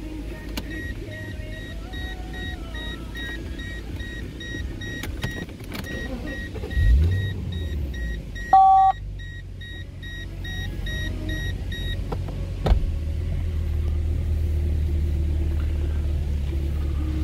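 Mercedes-Benz E420's 4.2-litre V8 idling, with a quick rev about seven seconds in and a steadier, louder low note from about thirteen seconds. A high electronic beeping repeats through the first twelve seconds, and a brief loud two-note tone sounds near nine seconds.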